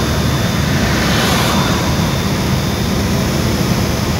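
Car driving at speed on an expressway: a steady low rumble of road and wind noise, with a hiss that swells briefly about a second in.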